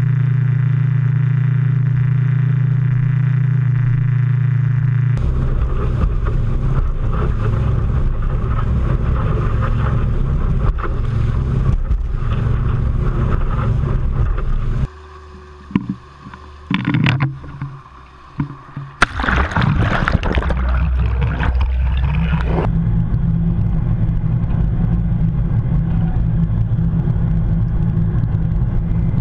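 Yamaha outboard motor running steadily at speed, then broad rushing of water and wind as the boat drives through its wake. Around halfway the sound drops and is broken by sudden sharp splashes, followed by a loud rush of water as the camera goes under the surface, after which a muffled low steady rumble is heard through the water.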